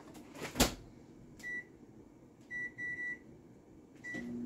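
Microwave oven being set: a thump early on, then keypad beeps, one and then a quick run of three, as the 4-minute cook time is entered. A last beep comes near the end, and the oven starts running with a steady hum.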